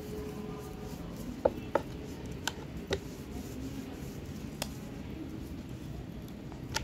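Wooden rolling pin rolling chapati dough on a round wooden board: a soft rolling rub with a handful of sharp wooden knocks.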